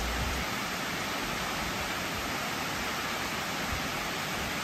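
Water spilling over a dam's crest and falling down its concrete face: a steady rushing roar of falling water.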